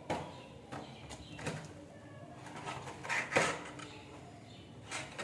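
Small cardboard incense box being handled and opened, with short scraping and tapping noises, the loudest about three seconds in. A bird coos faintly in the background.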